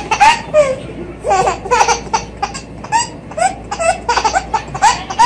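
A baby laughing hard, in repeated bursts of giggles.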